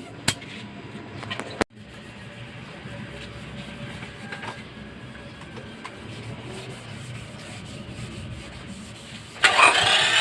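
Engine of a second-generation Toyota Camry turned over on its starter for a compression test, without firing. The loud, rhythmic cranking begins near the end. Before it there is a click and a sharp knock about a second and a half in.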